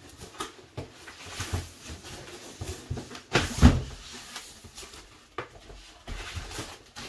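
Cardboard packaging being handled: rustling and scraping of cardboard with several knocks, the loudest a little over three seconds in, as a heavy boxed item is worked out of its shipping carton.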